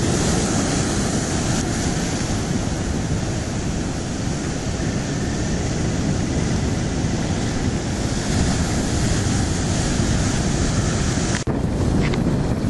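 Ocean surf breaking and washing over rocks, with steady wind rumbling on the microphone. A brief drop in the sound comes about eleven and a half seconds in.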